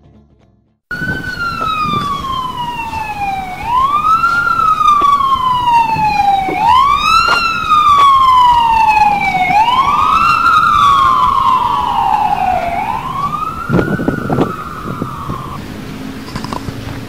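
An emergency-vehicle siren wailing: a loud tone that climbs quickly and slides slowly down about every three seconds, four times over, stopping near the end, over steady background noise.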